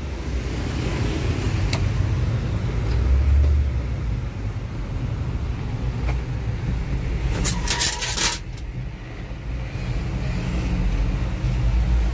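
Low, steady motor-vehicle rumble, with a brief loud rustling or scraping noise about seven and a half seconds in.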